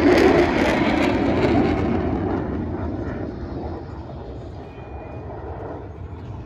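Fighter jet's engine noise as it passes low overhead, loudest at first and fading steadily over a few seconds as it flies away.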